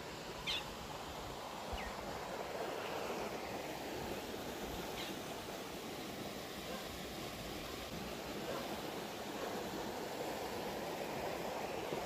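Shallow river flowing over a rocky bed: a steady rush of rippling water, with a few short, faint high chirps.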